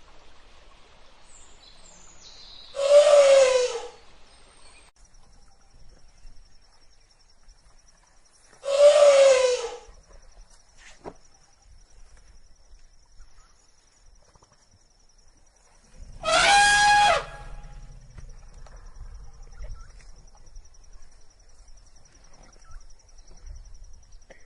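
Elephant trumpeting three times, each blast about a second long, the first two with a falling pitch and the last higher and more tonal. A faint, steady, high pulsing tone continues underneath between the calls.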